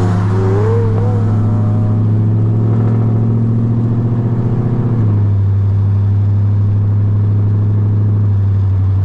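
Car engine running steadily at a held speed, its low hum dropping a little in pitch about five seconds in and again near the end.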